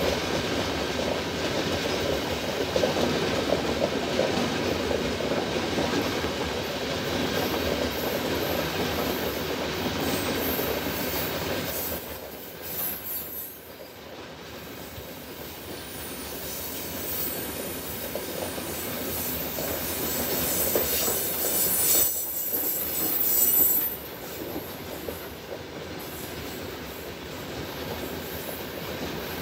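Freight train of hopper wagons rolling steadily past, with continuous wheel-on-rail noise. A high-pitched wheel squeal rises in the middle stretch and is loudest shortly before it drops away about three quarters of the way through.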